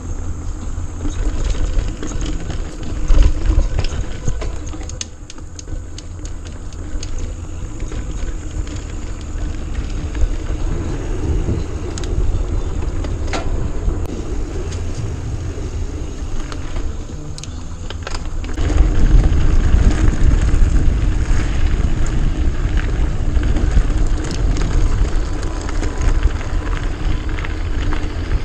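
Mountain bike rolling over a dirt trail: steady rumble of wind on the microphone and tyres on the ground, with the bike rattling and a few sharp clicks or knocks. The rumble gets louder about two-thirds of the way through.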